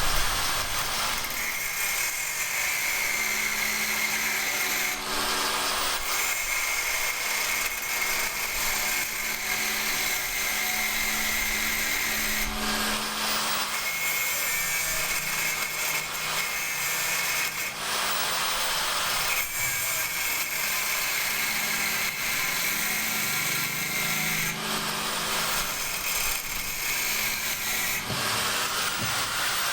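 Power tool motor running steadily in several stretches of a few seconds each, with short breaks or changes between them.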